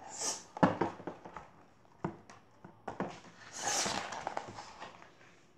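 Pages of a paperback picture book being turned and handled: a short paper swish at the start and a longer one about two-thirds of the way through, with a few light knocks and taps between.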